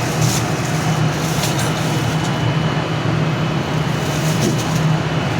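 Steady low motor hum with a few light clicks.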